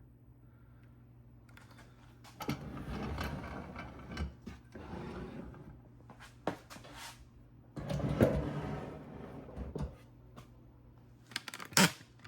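Handling noise: two stretches of scraping and rattling, each a couple of seconds long, with scattered clicks and one sharp click near the end.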